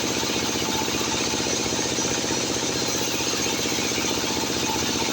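Sawmill machinery running steadily: an engine-like drone with a fast, even pulse and no change in load.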